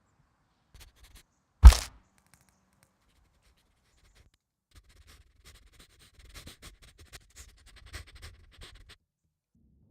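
A single heavy thud, followed a few seconds later by a run of small, irregular scrapes and clicks. These are foley sound effects.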